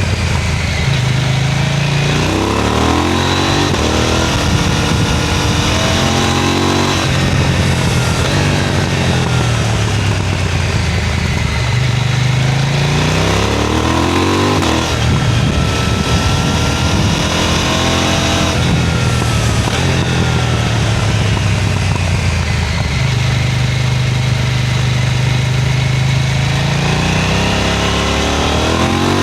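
KTM 990 Duke twin-cylinder motorcycle engine and exhaust, ridden hard: the revs climb and fall again and again as the bike accelerates and shifts, with a few seconds of steady revs later on.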